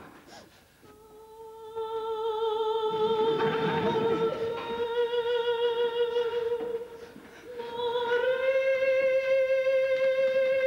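A woman's voice singing long held notes without words: about a second in, one note starts and is held for some six seconds, then after a short dip a slightly higher note is held to the end.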